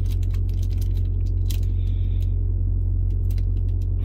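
Steady low engine hum with short crinkles and clicks from a foil Pokémon booster pack being worked open by hand; the wrapper is stiff and hard to tear.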